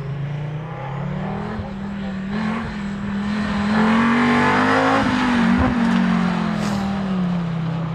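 Rally car engine at speed, its note climbing as the car approaches, loudest about halfway through as it goes by, then dropping as it moves away.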